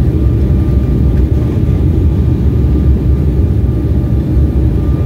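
Steady cabin noise inside an Embraer 175 twin-jet on final approach: a loud, even low rumble of airflow and engines, with a faint steady high tone running through it.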